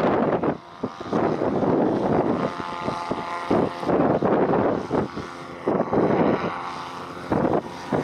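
Christy 463 PC hovercraft's engines and propeller droning steadily, broken several times by loud bursts of gusty wind buffeting the microphone.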